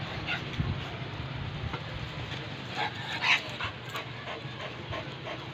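Leashed dog panting and moving about, with scattered light scuffs and clicks and one brief sharper sound about three seconds in.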